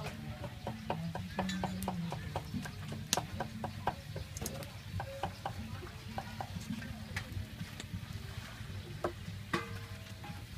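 Market ambience: a steady low hum under a stream of short clicks and clatter, with faint clucking of chickens.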